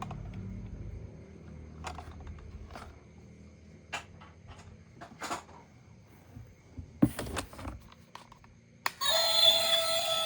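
Scattered light clicks and knocks of toys being handled, then music starts near the end.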